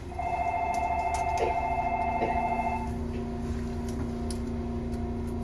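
Tokyo Monorail train's door-closing chime in the cab: a rapidly pulsing two-note electronic tone sounding for about two and a half seconds, then stopping, with a few sharp clicks and a steady low hum underneath.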